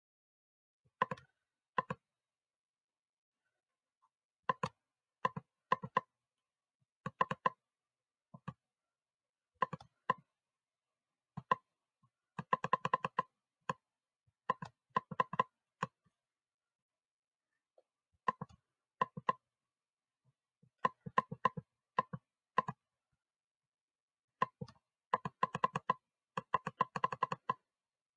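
Computer mouse clicking in short bursts of rapid clicks, a burst every second or two, with dead quiet in between.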